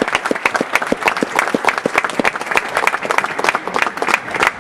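Audience applauding: many hands clapping at once in a dense, steady patter, with a few louder single claps standing out.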